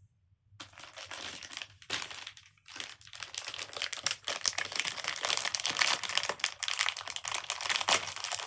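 Fidget-toy packaging crinkling and crackling as it is handled and opened. It starts about half a second in, breaks off briefly twice, then goes on without pause.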